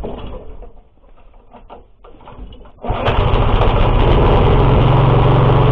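A few light knocks and clicks, then about three seconds in an arc welder strikes up with a loud, steady crackling buzz, laying weld onto the worn output shaft of an Oka MB-1 walk-behind tractor gearbox to build it back up by about 2 mm.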